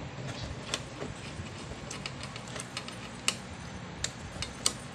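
Scattered light clicks and taps of small parts being handled on a CRT television's circuit board, irregular and a second or so apart, over a faint low steady hum.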